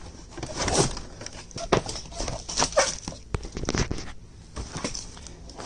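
Items being rummaged through in a cardboard box: rustling fabric and bags, with irregular knocks and clatters as objects are shifted.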